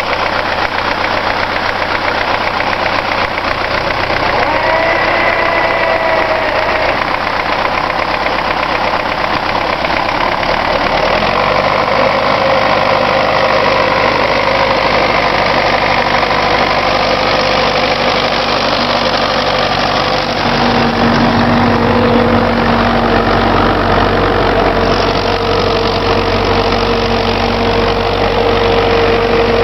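Belarus MTZ-82 tractor's four-cylinder diesel engine running under load as the tractor pulls through deep snow, with steady diesel clatter. The engine note shifts about 11 seconds in and again about 20 seconds in, and it grows a little louder as the tractor comes close.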